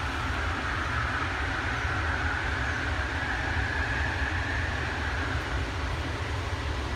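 JFK AirTrain car running along its guideway, heard from inside the car: a steady low rumble with a high whine that rises slightly, holds, and fades out about five and a half seconds in.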